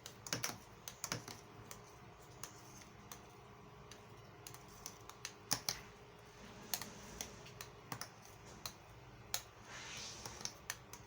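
A spoon stirring honey into a blended fruit-and-milk drink in a glass cup, clicking against the glass at irregular moments.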